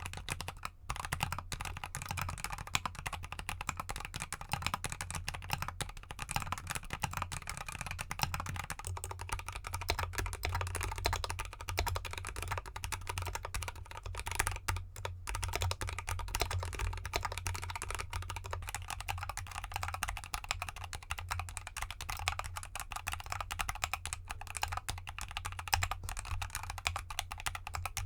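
Continuous fast typing on a GK64X mechanical keyboard with Gateron Cap Gold linear switches and XDA keycaps in an aluminium case. The keyboard sits on a cork mat with its case stuffed with clay; about eight seconds in the sound changes as it switches to the unfilled case on cork plus felt, then back to the clay-filled case near twenty seconds in. A steady low hum lies underneath.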